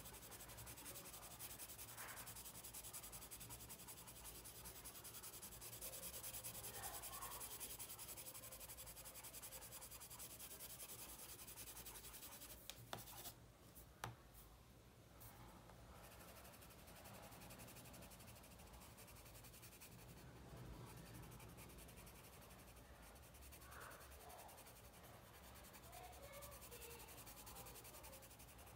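A coloured pencil shading on paper: a faint, steady scratchy rubbing of the pencil lead across the sheet. About halfway through there are two light taps, then a short pause in the scratching.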